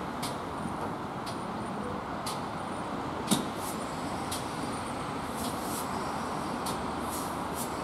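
GWR 0-6-0 pannier tank steam locomotive moving slowly along the station track: a steady hiss with a run of light metallic clicks, and one sharper knock about three seconds in.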